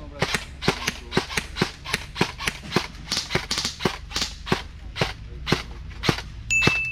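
Airsoft gun firing a string of sharp single shots, about four to five a second, slowing to about two a second in the second half. A short high beep sounds near the end.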